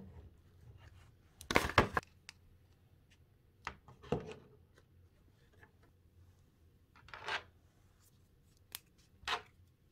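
Hard plastic macaron-shaped slime containers handled and set down on a tabletop: scattered sharp knocks and clicks with quiet between, the loudest a quick pair about one and a half seconds in.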